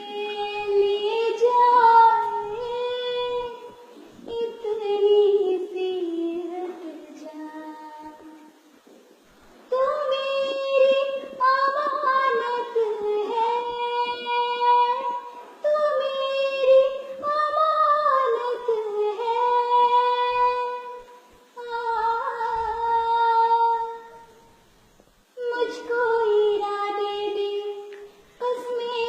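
A high voice singing a melody solo, in long held, wavering notes grouped into phrases with brief breaks between them, the longest break about nine seconds in.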